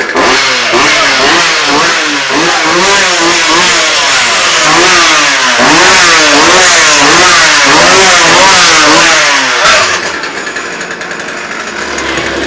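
Chainsaw engine being revved over and over, its pitch rising and falling about once a second. About ten seconds in it drops to a quieter, steadier sound with a low hum.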